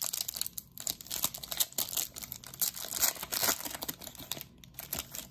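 Foil wrapper of a football trading card pack crinkling and tearing as it is ripped open by hand: a quick, irregular run of crackles, busiest in the middle and thinning out near the end.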